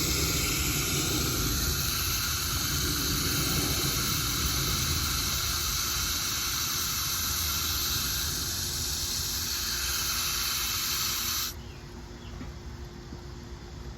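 Solar fountain pump spraying water from its nozzle and splashing into a bird bath, a steady hiss that cuts off suddenly about two-thirds of the way through.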